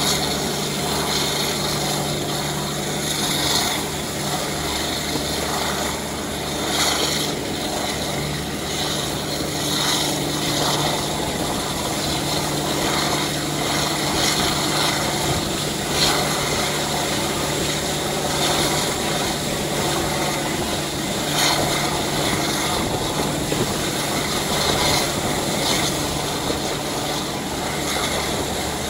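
Class 52 'Western' diesel-hydraulic locomotive D1015 and its twin Maybach V12 diesels running steadily under way, a constant engine drone heard through an open train window. Wind rush and occasional wheel-on-rail clicks are mixed in.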